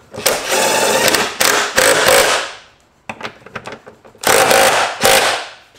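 Cordless power tool running in several short bursts with a pause in the middle, driving in the 15 mm bolts of a driveshaft centre-support bracket.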